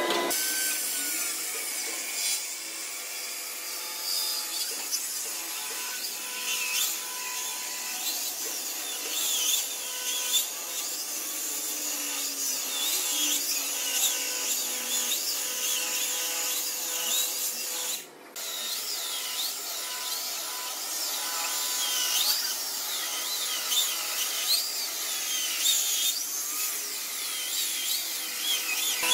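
Handheld circular saw cutting along the edge of a thick Cẩm Lai rosewood slab, its whine wavering in pitch as the blade works through the wood. The sound cuts out briefly about eighteen seconds in.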